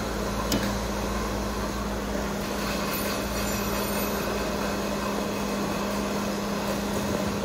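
Empty-can feed table and conveyor of a beverage can filling line running: a steady mechanical hum with a constant low tone, and one sharp click about half a second in.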